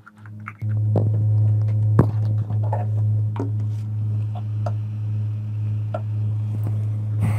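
Hot air rework gun's blower switched on about half a second in, then running with a steady low hum, ready to heat off a MOSFET; a few sharp handling clicks on top, the loudest about two seconds in.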